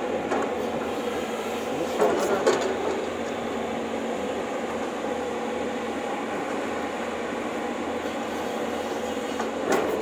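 JCB tracked excavator running steadily as it works its arm and bucket in the dirt. There is a short louder sound about two seconds in.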